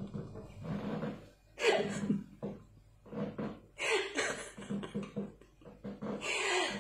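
A woman laughing in several breathy bursts.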